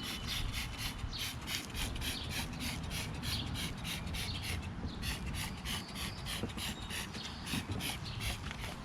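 Trigger spray bottle of foaming degreaser being pumped rapidly, a run of short hissing squirts at about four or five a second, with a brief pause about halfway through. A low rumble sits underneath.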